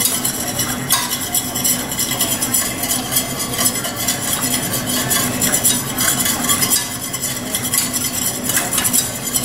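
A utensil stirring a thick sauce round a stainless steel saucepan, going steadily.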